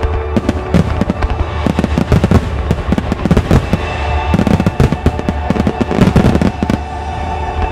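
Fireworks firing in a rapid barrage of sharp cracks and bangs, thickest about two seconds in and again from about four to nearly seven seconds, over accompanying music.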